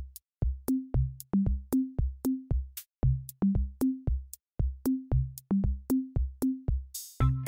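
Background electronic music: a drum-machine beat of kick and pitched drum hits, with a cymbal swell and a synth layer coming in near the end.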